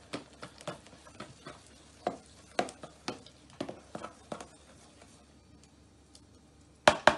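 Spoon stirring thick beer batter in a plastic tub, with soft wet clicks and scrapes against the container a few times a second. After a short lull, a quick run of loud sharp knocks starts near the end.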